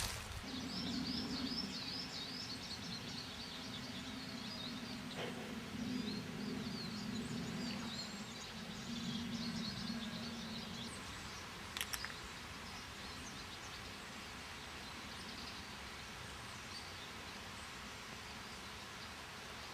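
Countryside ambience: small birds singing and chirping over a low steady hum, with a single sharp click about twelve seconds in.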